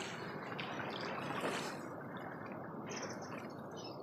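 Steady rush of turbulent river water, with a few faint ticks.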